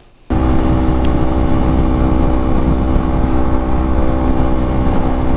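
Motorcycle cruising at steady freeway speed, its engine holding one even pitch over a low wind rumble; the sound starts abruptly a moment in.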